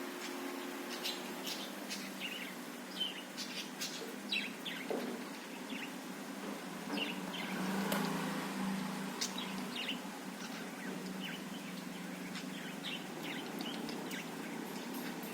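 Budgerigar chirping and warbling in short, scattered calls, over a steady low hum.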